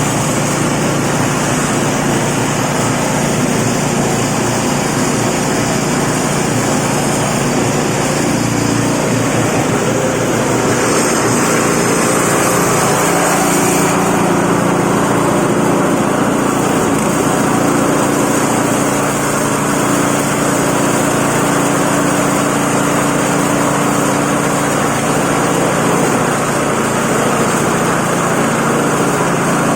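Multipurpose feed grinder and grass chopper machine running loudly and steadily; its sound changes in character about fourteen seconds in.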